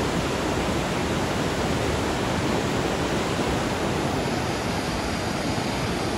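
Whitewater of a mountain river rushing over rocks and through rapids: a steady, loud rush of water.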